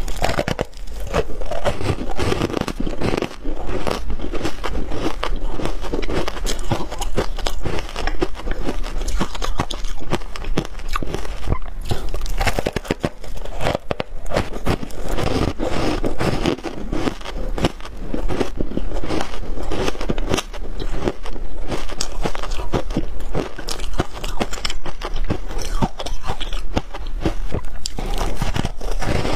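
Close-miked biting and chewing of frozen shaved ice coated in matcha powder: loud, dense, irregular crunching and crackling as the ice is bitten and broken up between the teeth.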